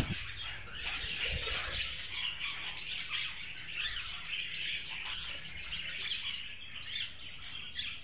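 Many budgerigars in a breeding colony chattering together in a steady, dense twitter.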